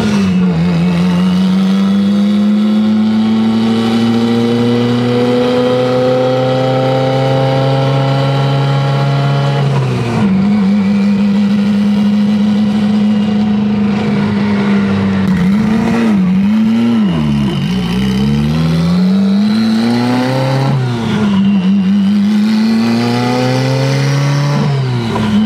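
Built turbocharged Mitsubishi Evo 8 four-cylinder (4G63) heard from inside the cabin while driving through the gears on part throttle. The engine note climbs slowly for about ten seconds, drops suddenly at a shift and holds steady, then falls and climbs again with two more quick shifts in the second half.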